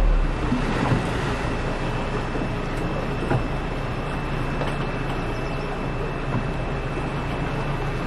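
Small boat's motor running steadily under way, with a hiss of wind and water over it.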